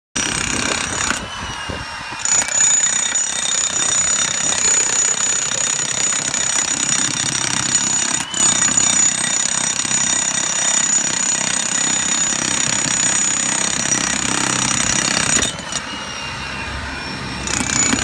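Hilti TE 1000-AVR electric demolition hammer with a chisel bit breaking into stone and packed earth: a loud, rapid, continuous hammering that eases off for a second or two about a second in and again near the end.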